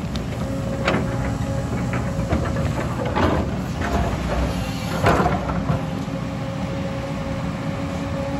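JCB crawler excavator's diesel engine running with a steady hydraulic whine while the bucket works rock and soil. Stones clatter about one, three and five seconds in, loudest near five seconds.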